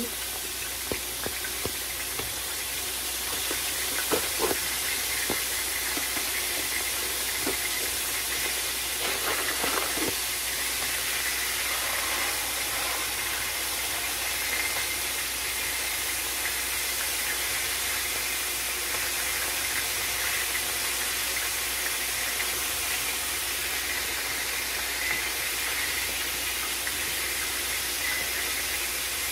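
Pot of water boiling on a stovetop: a steady hiss, with a few light knocks about 4 and 10 seconds in.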